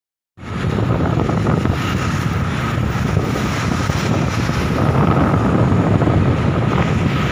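Wind buffeting the microphone of a camera carried on a moving bicycle, over the noise of passing road traffic. It cuts in abruptly just after the start, and a faint steady whine runs under it.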